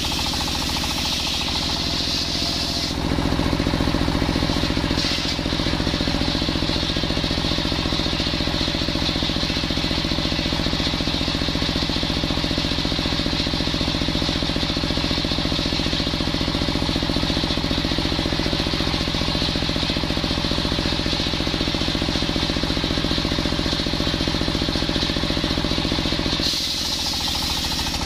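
Large sawmill circular saw blade ripping lengthwise through a coconut palm log, with the drive engine running steadily underneath. The cutting noise gets louder about three seconds in and drops back near the end as the blade comes out of the log.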